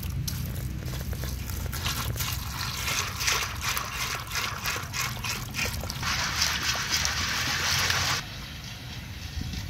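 Something being poured: scattered small clicks that thicken into a steady hiss, which cuts off abruptly about eight seconds in.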